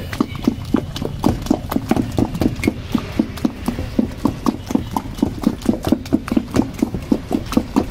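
Rapid, steady knocking of a utensil as the vendor chops and mixes chole kulche ingredients, about five strokes a second.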